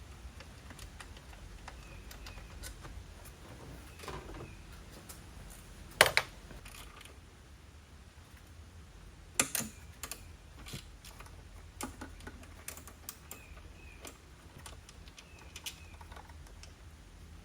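Hand tools clicking and clinking on metal in scattered light taps, with a few sharp clanks, as the throttle body bolts are undone.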